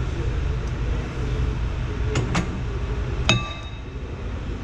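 Steel brake-lathe mounting parts clinking: two light clicks, then a sharp metallic clang a little over three seconds in that rings briefly, as a brake rotor and its adapters are fitted onto the lathe arbor. A steady low hum runs underneath.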